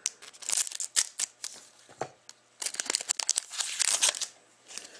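A foil trading-card pack crinkling and tearing open by hand, then the cards being slid and fanned apart. The sound comes in several bursts of sharp crackling and rustling with short pauses between them.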